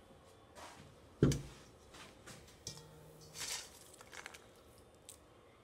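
Table-top handling noises: one thump a little over a second in, then a few short rustles and light clicks as hands work at a steel bowl of popcorn and a newspaper.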